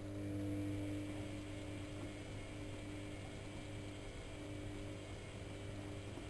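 AEG Electrolux Lavamat L6461 washing machine running with a steady electrical hum that starts at the beginning and holds one even pitch.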